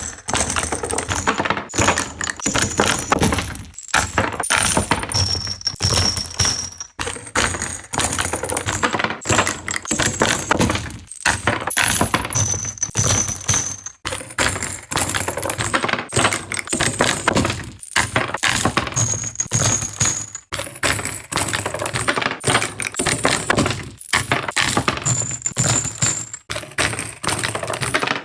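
Loose metal cartridges clattering and clinking together in dense runs, with short bright ringing pings, broken by brief pauses every few seconds.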